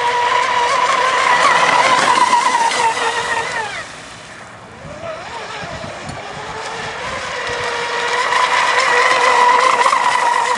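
Brushless electric motor of an RC catamaran speedboat running at high speed with a steady high whine. It eases off and drops in pitch about four seconds in, then builds back up to full whine.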